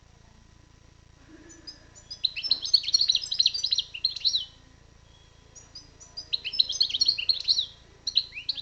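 European goldfinch singing: phrases of rapid, high twittering notes, one about two seconds in and another a little after halfway, with short pauses between them and a third phrase starting near the end.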